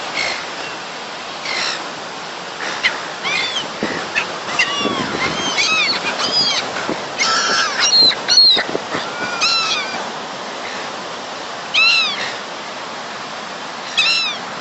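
Gulls calling over and over while being fed bread: short, high, down-curving cries, several birds overlapping near the middle. Wind and surf hiss steadily underneath.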